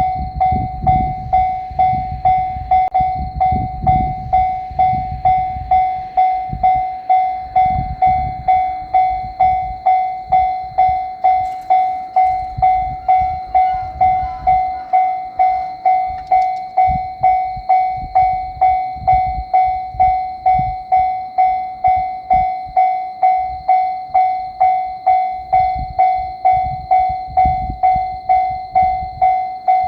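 Japanese railway level-crossing warning bell ringing "kan-kan" steadily, about three strikes every two seconds. Each strike is the same high ringing note that fades before the next. A low rumble comes and goes beneath it.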